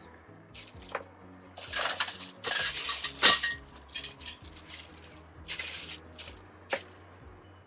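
Greenhouse kit parts clinking and rattling against each other as they are handled, in a series of short clattering bursts with one louder clank about three seconds in.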